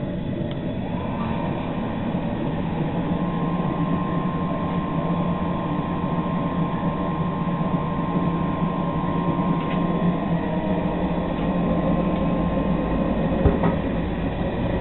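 Small electric brewing pump switched on about a second in and running steadily with a low hum and a thin high whine, pumping hot strike water through the hoses into the tank. One short knock near the end.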